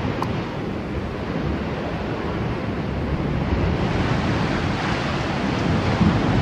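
Sea surf washing over rocks, a steady rushing noise with wind buffeting the microphone. It turns brighter and hissier about four seconds in.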